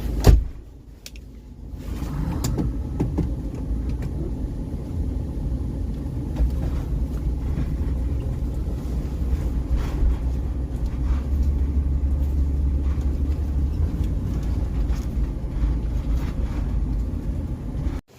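Old converted shuttle bus driving over a rough trail: a steady low engine and road rumble with scattered knocks and rattles. A single loud knock comes right at the start.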